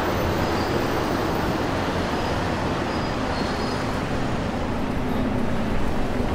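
Steady city street traffic noise, with a faint engine hum coming in during the second half.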